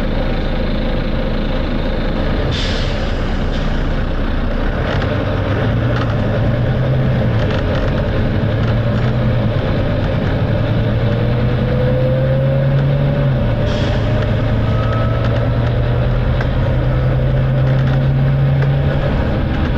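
Volvo B9TL double-decker bus's diesel engine running steadily under way, its note shifting up and down in steps, with a faint rising whine midway. Two short hisses of air, about three seconds in and again near two-thirds of the way through.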